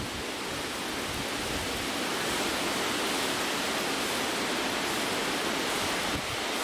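Heavy rain pouring down as a dense, even hiss, growing slightly louder over the first couple of seconds.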